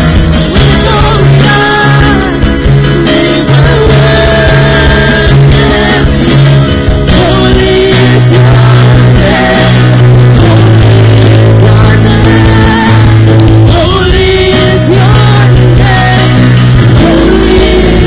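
Christian worship band music: a slow worship song with electric guitar, bass and drums, the bass holding long notes that change every second or two.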